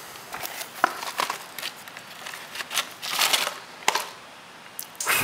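Hands handling packaged survival-kit items: packaging rustling and crinkling, with several sharp clicks and taps. The loudest rustle comes about three seconds in, and a sharp click follows just before four seconds.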